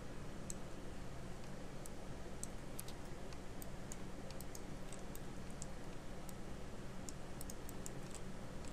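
Light, irregular clicking of a computer mouse and keyboard, a few clicks a second at most, over a steady low hum.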